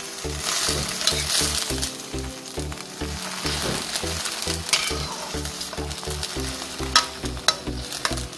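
Spinach and sweet corn stir-fry sizzling in a wok as a spatula tosses and scrapes it, with a few sharp knocks on the pan near the end. Background music with a steady beat plays under it.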